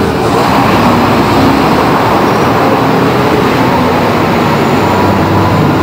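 A man's voice talking over loud, steady background noise.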